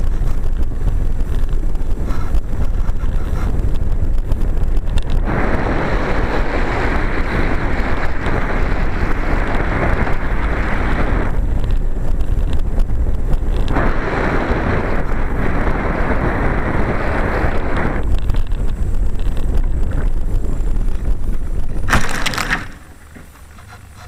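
Loud rushing wind over a wing-mounted onboard camera's microphone as a Bird of Time sailplane flies, swelling louder in two long stretches. About 22 seconds in a short rough crunch marks the landing in grass, after which it drops to a much quieter hush.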